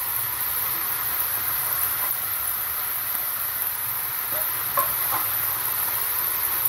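Chopped cabbage, onion, capsicum and paneer frying in a wok: a steady sizzle, with a couple of light knocks of the wooden spatula about five seconds in.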